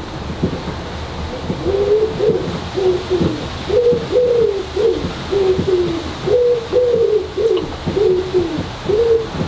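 A pigeon cooing in a long run of low, repeated notes over the steady hiss of heavy rain.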